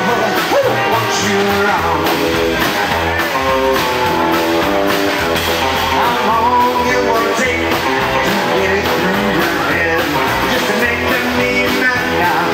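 Live rock and roll band playing: electric guitar and acoustic guitar over upright bass and drums, with a steady beat.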